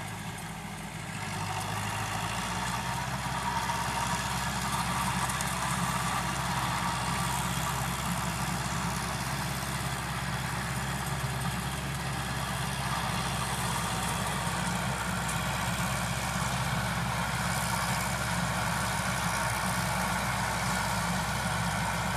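Landini 8860 tractor's Perkins 4.1-litre four-cylinder diesel running steadily under load while its rear rotary tiller churns dry soil. It gets louder about a second or two in.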